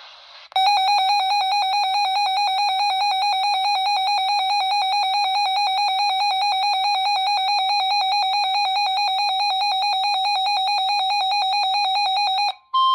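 Weather alert radio sounding its alert tone for a flood warning: a loud, harsh electronic warbling tone held for about twelve seconds, starting about half a second in and cutting off just before the end.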